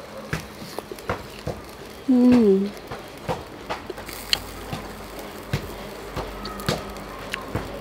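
A person chewing a mouthful of grilled catfish, with irregular wet mouth clicks and lip smacks, and one short hummed "mmm" falling in pitch about two seconds in.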